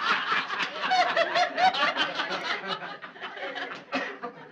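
A group of people laughing together, many voices at once, dying away toward the end.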